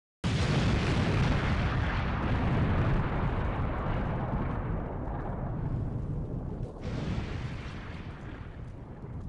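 Bomb explosion sound effect: a sudden loud blast about a quarter second in, then a long deep rumble that slowly fades, swelling briefly again near the seventh second.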